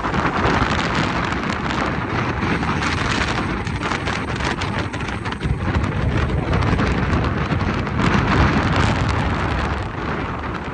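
Strong gusting wind buffeting the microphone: a continuous low rumble and rushing hiss with crackling, swelling in gusts, the strongest about eight seconds in.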